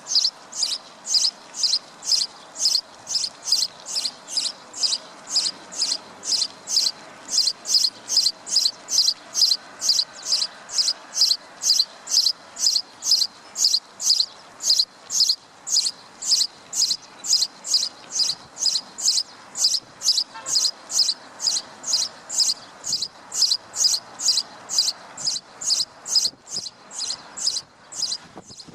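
A short, high-pitched chirp repeated steadily a little over twice a second, over a faint background hiss.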